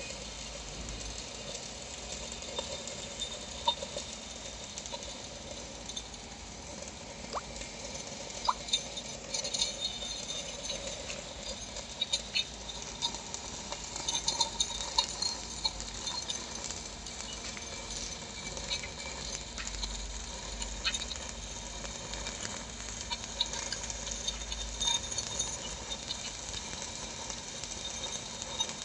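Shielded metal arc (stick) welding on a pipe joint: the electrode's arc crackles and sizzles steadily, with frequent sharp pops and clicks of spatter.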